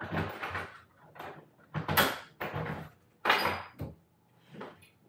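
A wooden hotel-room door being unlocked and opened: a series of separate rattles and clunks from the lock and handle.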